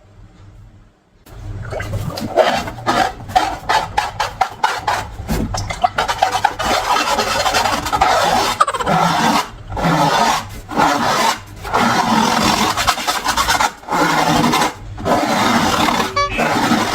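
Close-up rubbing and squishing of slime and balloons, starting about a second in. It runs as a dense, gritty, wet-sounding rasp, broken by brief pauses about once a second.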